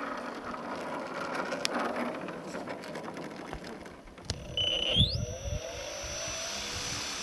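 Sebart Katana radio-controlled model plane taxiing on the runway, its motor giving a steady whir. A little past the middle there are a couple of knocks, then a high whine that climbs quickly in pitch and holds steady.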